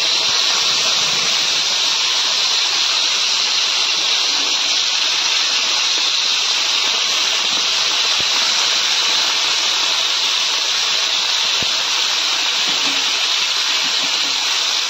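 Kababs shallow-frying in hot oil on a flat tawa: a steady, loud sizzle, with a few faint taps.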